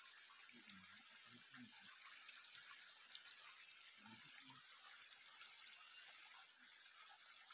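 Faint, steady trickle of a shallow, rocky stream.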